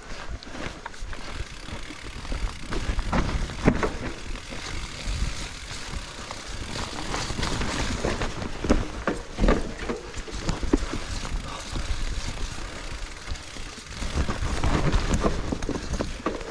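Specialized Levo electric mountain bike ridden over rough trail: tyres rumbling and crunching on dirt and rock, with frequent knocks and rattles from the bike.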